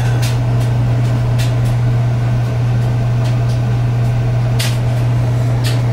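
A loud, steady low hum, with a few faint clicks scattered through it.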